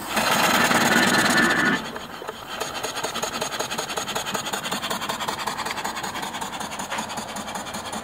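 A small single-cylinder horizontal steam engine running on live steam from a fire-tube boiler, its exhaust giving a rapid, even chuffing. It opens with a loud rush of steam lasting nearly two seconds that cuts off sharply.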